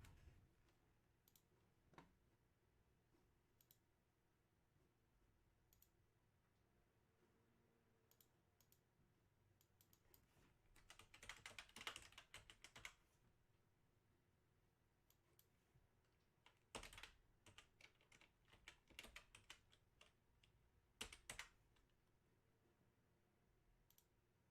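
Faint typing on a computer keyboard in a few short spurts of clicks, the longest about halfway through.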